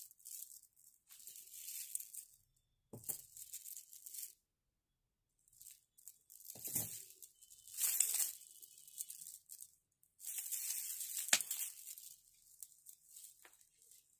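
Bundled strands of 6 mm pearls handled and turned over in the hands, the beads rustling and clicking against one another in a series of short bursts, with a few sharper clicks among them.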